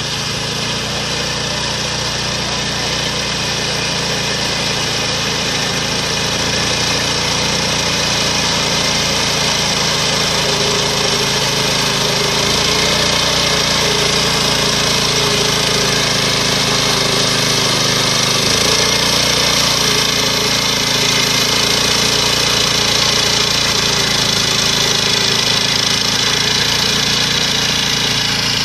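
Walk-behind reaper harvester's 7 HP diesel engine running steadily as the machine cuts standing paddy.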